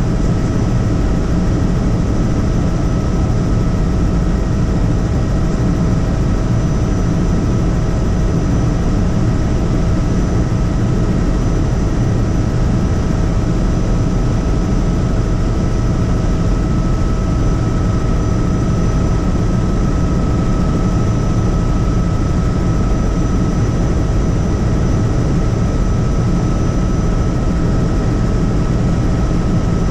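Helicopter in steady flight: a loud, even drone of rotor and engine with a steady high whine above it.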